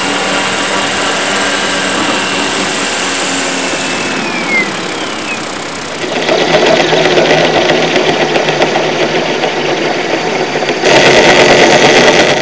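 Radio-controlled scale UH-1 Huey helicopter running steadily in a low hover. About halfway through it gives way to a louder, rougher buzzing sound, and near the end a still louder burst.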